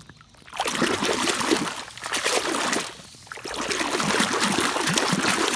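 Pond water splashing and sloshing as a muddy toy truck is swished back and forth underwater by hand to wash the mud off, in two bouts with a short pause about three seconds in.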